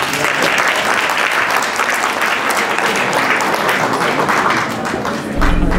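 Audience applauding. Near the end, electronic music with a heavy bass cuts in.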